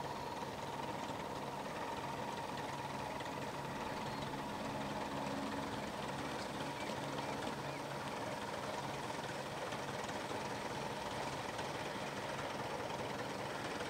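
Piper Cub floatplane's engine and propeller droning steadily in flight, climbing out after takeoff, with a thin high tone over the drone.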